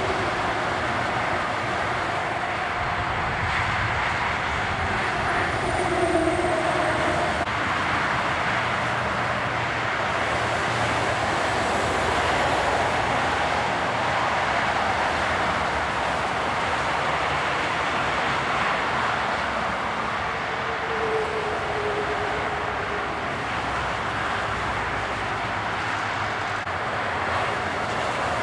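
Steady motorway traffic noise: cars and lorries rolling past at speed, a constant rush of tyres and engines with no single pass standing out.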